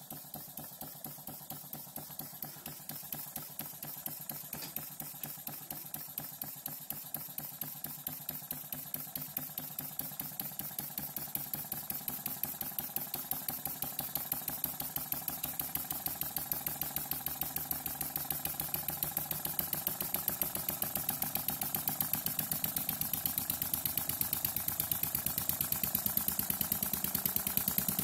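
Model single-acting vertical steam engine running, with a regular puff of exhaust once per turn of its flywheel, the beat growing gradually louder.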